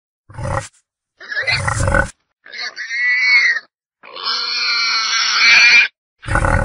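Wild boar vocalising in separate calls: two short, low grunts, then two longer, higher-pitched squealing calls, the second lasting about two seconds, and another grunt near the end.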